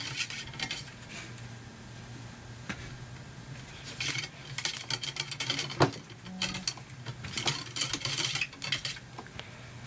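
Cleaning rod with an oiled patch being run back and forth through a 30-30 lever-action rifle's barrel: clusters of quick clicks and scrapes from the rod, in about three bursts, with one sharper click near the middle.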